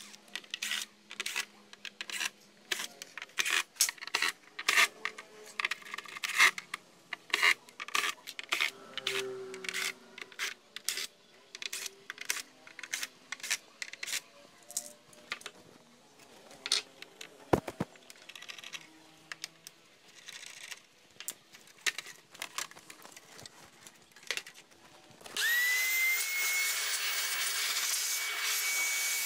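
Irregular clicks and clatter of screws and the plastic TV back cover being handled. About 25 seconds in, a cordless drill-driver whirs steadily for about four seconds, its whine rising as it spins up and then holding.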